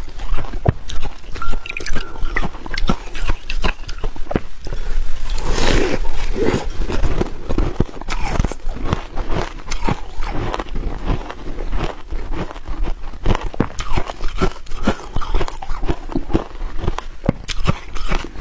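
Close-miked biting and chewing of a frosty block of purple ice, with dense, irregular crunching and crackling throughout and a longer crunch about five and a half seconds in.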